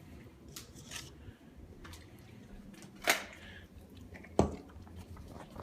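A pet chewing chicken: a few quiet sharp crunches, then two louder clicking crunches about three and four and a half seconds in.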